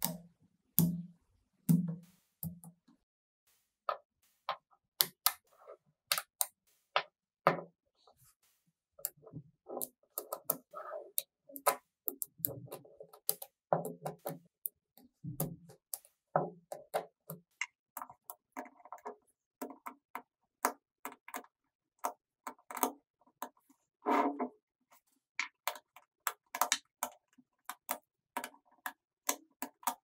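Small metal magnetic balls clicking and snapping together as sheets of them are pressed, bent and joined by hand: an irregular run of sharp clicks with short rattles. Background music with a beat is heard in the first couple of seconds.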